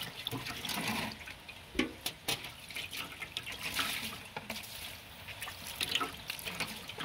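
Water splashing and dripping in a metal basin as hands rinse and peel a chicken gizzard, in small irregular splashes and clicks.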